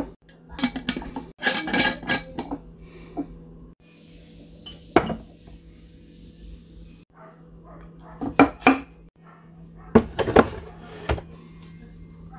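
Glass storage jars and their metal screw lids clinking and knocking as they are handled and set down, in several short clusters of taps and clinks.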